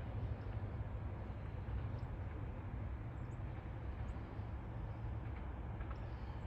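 CSX manifest freight train rolling past, a steady low rumble of its cars with no horn or bell.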